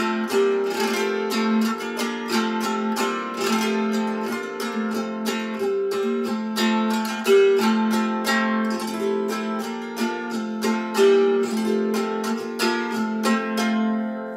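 Nineteen-string Bayun gusli, a trapezoid psaltery, plucked with the fingers: a quick run of notes, the strings ringing on over one another. The plucking stops near the end and the strings are left ringing.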